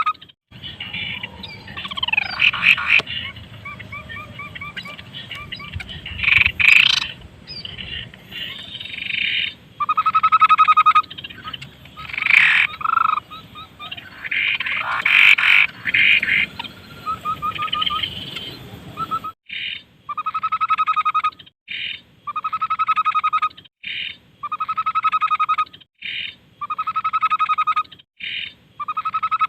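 Tepus babbler singing loudly: a mix of rapid trills, whistles and sliding notes for about the first twenty seconds, then one short trilled phrase repeated about once a second.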